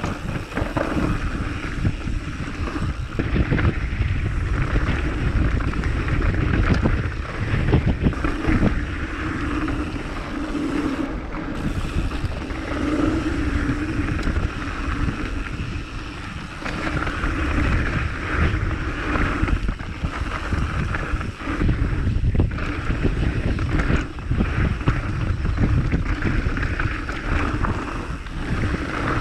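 Wind buffeting the microphone over a steady rushing noise, rising and falling in gusts.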